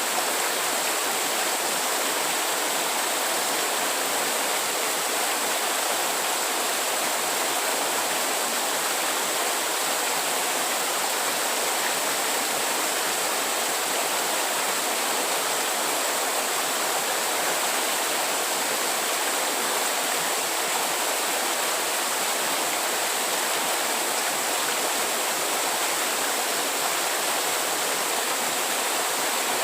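Steady rushing water, like a stream, an even unbroken noise with no pauses.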